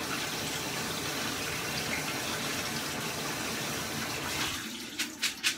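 Kitchen tap running cool water over dry black beans in a colander measuring cup in the sink. The water stops about four and a half seconds in, and the colander is then given a few quick shakes to drain it.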